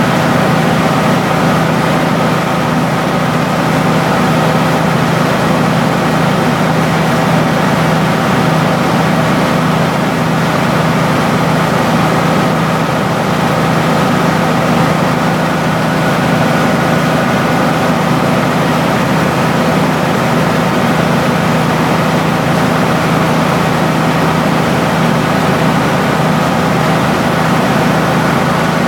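Rice milling machine running steadily, a loud, even mechanical drone with a constant hum.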